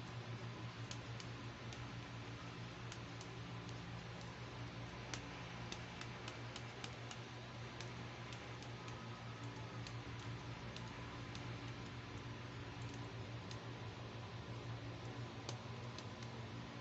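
Irregular light clicks and taps of hard plastic as a jointed fashion doll is handled and its arms and legs are bent and posed, over a steady low hum.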